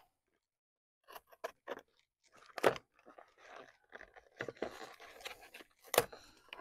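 Toy RC car boxes and their packaging being handled and opened: faint scattered rustles, crinkles and clicks, with a sharper knock about two and a half seconds in and another near the end.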